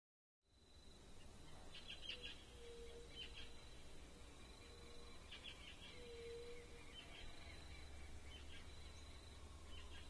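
Faint outdoor ambience fading in: small birds chirping in short clusters every second or two, a short low hooting note twice, and a thin steady high tone underneath.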